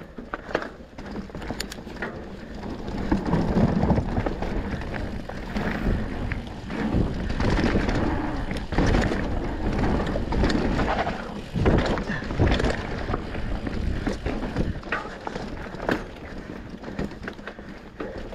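Mountain bike being ridden down a dirt trail: tyres rolling over the ground and the bike rattling, with sharper knocks over bumps.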